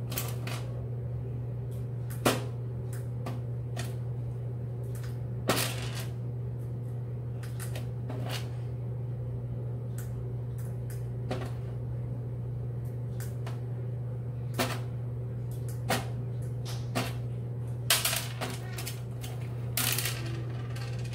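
Irregular small clicks and taps of plastic beads and fingers on a plastic tub while beads are worked into a balloon, over a steady low hum.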